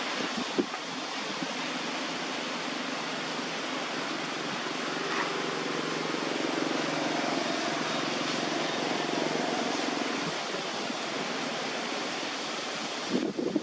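Steady broad hiss throughout, with a few faint knocks about half a second in and again near the end.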